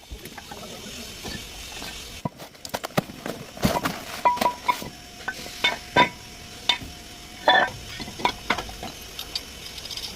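Metal tools and brake parts clinking and tapping during front brake work, a string of irregular sharp clicks with a couple of short metallic rings.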